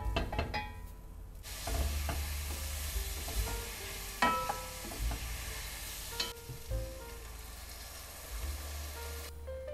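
Food sizzling in a frying pan while being stirred. The sizzle starts about a second and a half in and drops away near the end, with a few sharp clicks, probably against the pan, along the way. Soft background music plays under it.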